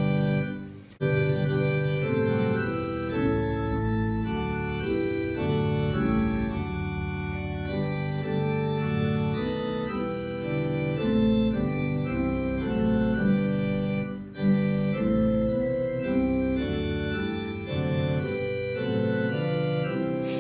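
Church organ playing sustained, changing chords, breaking off briefly about a second in and again about fourteen seconds in.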